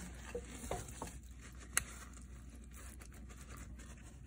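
Paper towel patting and rubbing the skin of a raw whole duck to dry it: soft, faint rustling and pats, with one sharp click a little under two seconds in.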